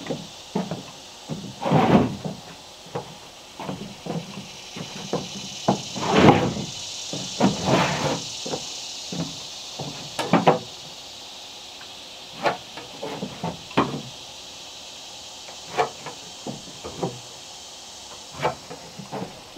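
Irregular knocks and thuds of boots on a wooden plank deck and a long wooden board being handled on the deck floor, with a few louder wooden bumps in the first half.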